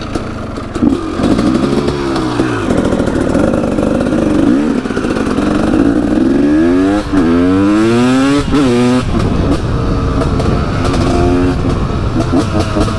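KTM EXC 300 two-stroke single-cylinder dirt bike with an FMF Shorty silencer, run hard: the engine note climbs and falls back several times, with a run of quick rising sweeps about halfway through that ends in a sudden drop.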